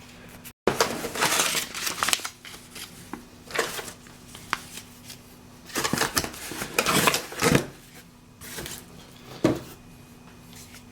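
Packaging and parts being handled during an unboxing: irregular rustling and light clattering in bursts, loudest about a second in and again around six to eight seconds in.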